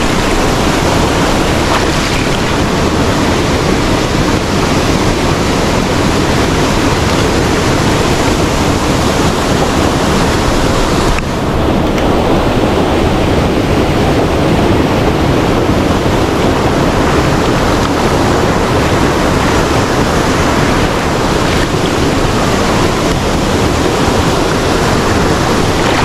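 Steady rush of a small waterfall and the fast stream water swirling around it, heard from right at the water's surface.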